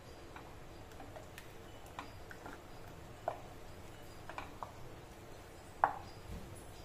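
Wooden spatula stirring thin curry in a metal pressure cooker, knocking lightly and irregularly against the pot's sides; the loudest knock comes near the end.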